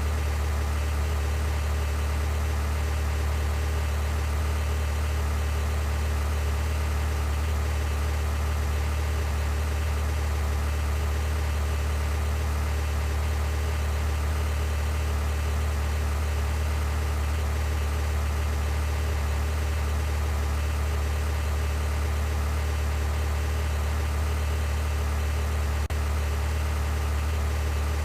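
Steady low hum that never changes, like a vehicle engine idling, with one faint click near the end.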